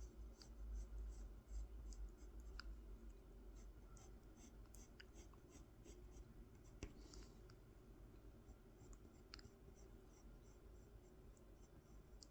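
Faint scratching of a pencil drawing on a wooden honey dipper, in many short, light strokes.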